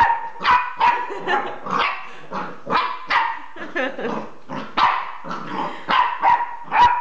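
Jack Russell terrier puppy barking repeatedly and excitedly, about two sharp, high barks a second, agitated by a new toy.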